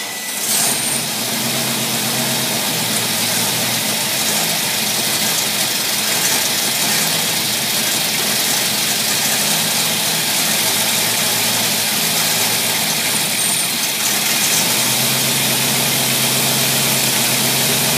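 Engine running on a Carter AFB four-barrel carburetor, settling into a steady idle just after being cranked up. Its low note gets a little louder about fifteen seconds in.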